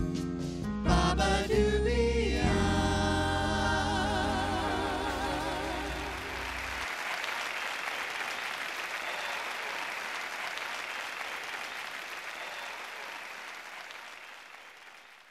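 A band's closing chords, then a long held final note with vibrato over sustained low notes that stop about seven seconds in. Audience applause rises over the ending and fades out near the end.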